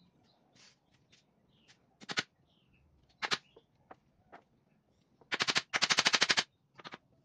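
Hammer blows nailing a wooden frame together, coming in quick runs of many sharp strikes; the longest and loudest runs fall about two-thirds of the way through.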